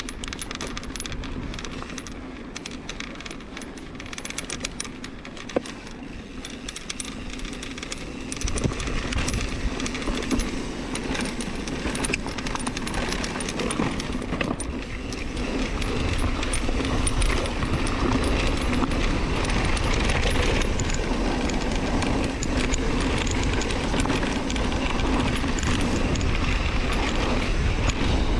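Mountain bike being ridden on a dirt trail: metal clicking and rattling from the bike over rough ground, with tyre noise. Wind buffets the microphone, coming in as a low rumble about eight seconds in and growing louder as speed picks up.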